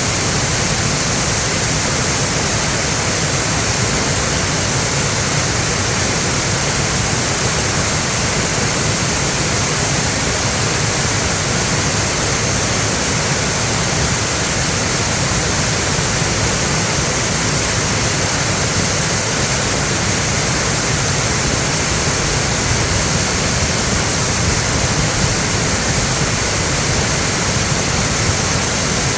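Mountain stream rushing strongly over rocks, swollen by rain: a loud, steady rush of water.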